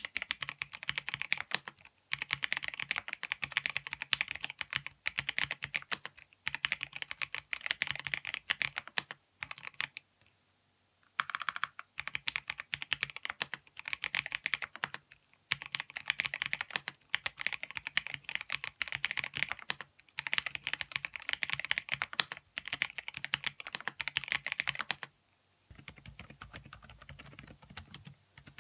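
Typing on a Mistel MD750 Delight JIS mechanical keyboard: quick runs of keystrokes in bursts with short pauses between them. The clicking turns much quieter for the last few seconds.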